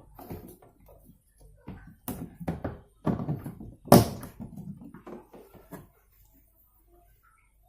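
A string of knocks and thuds, the loudest about four seconds in, dying away about six seconds in.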